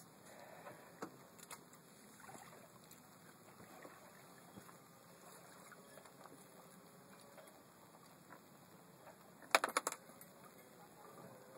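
Quiet sounds aboard a small boat on the water: faint water noise and small scattered knocks, then a quick cluster of four or five sharp knocks, the loudest sound, near the end.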